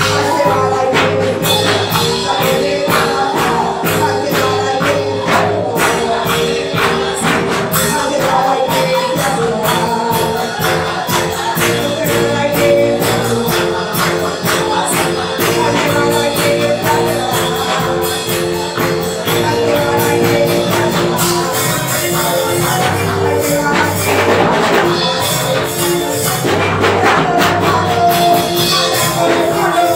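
Live Christian praise band playing a song with a steady beat: drum kit, electric keyboard and two women singing.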